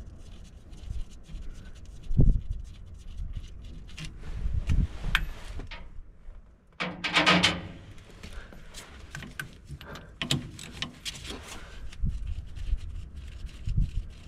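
Hand tools working on excavator hydraulic hose fittings: scattered metal clicks and knocks of a wrench on the fittings, with rubbing of gloves and sleeves against the hoses, and a louder brief burst, perhaps a grunt of effort, about seven seconds in.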